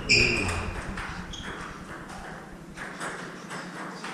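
Table tennis play on a wooden court floor: a sharp sneaker squeak with a low thump as a player lunges, another short squeak about a second later, and a few light taps of the ball, echoing off the court walls.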